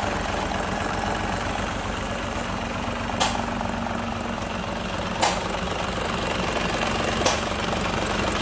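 Truck diesel engine idling steadily, with a sharp click about every two seconds.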